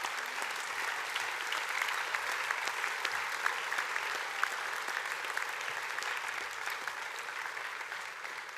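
Audience applauding in a hall, steady clapping from many hands that fades slightly near the end.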